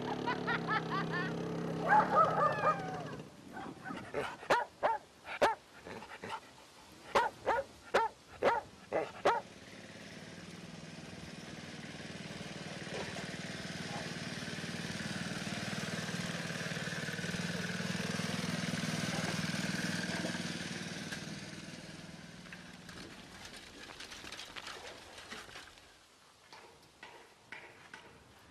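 A dog barking repeatedly, about ten short sharp barks over the first nine seconds. Then a walk-behind tractor's small engine passes, its steady hum swelling and fading over roughly ten seconds.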